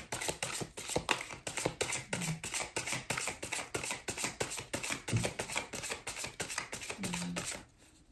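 A deck of tarot cards being shuffled by hand: a fast run of cards flicking and slapping against each other, about five to six clicks a second, that stops briefly near the end.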